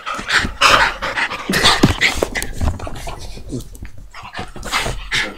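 Dog panting in quick, breathy huffs, loudest in the first couple of seconds.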